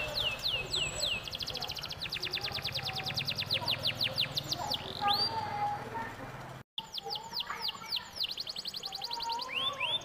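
Domestic canary singing: quick downward-sweeping whistled notes, then a long fast rolling trill of rapidly repeated notes. The sound cuts out for an instant about two-thirds of the way in, then more sweeping notes and another short trill follow.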